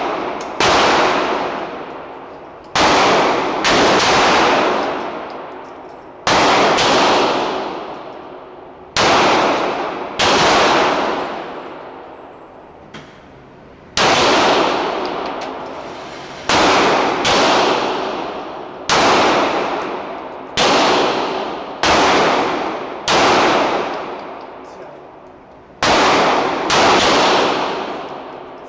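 Pistol shots fired in an indoor shooting range, about twenty in all at irregular gaps of one to three seconds, each a sharp crack followed by a long echo that dies away in the hall.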